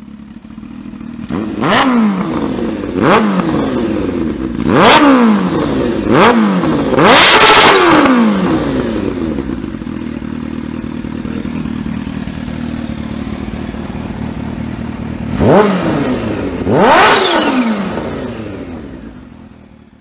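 Kawasaki Ninja H2's supercharged inline-four idling while the throttle is blipped seven times: five quick revs in the first eight seconds, the last held about a second, then two more near the end. Each rev rises sharply and falls back to idle.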